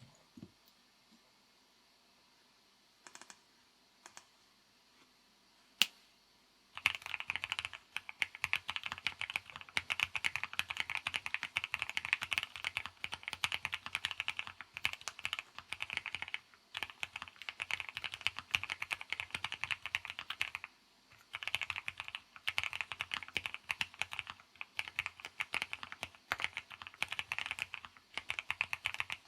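Sea75 custom mechanical keyboard being typed on: a few isolated key clicks, then about seven seconds in a fast, continuous run of key clacks that breaks off briefly a few times.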